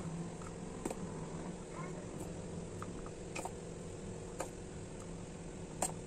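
A few light clicks of a steel spoon against a steel bowl and a plastic idli mould as batter is spooned into the cups, over a steady low hum.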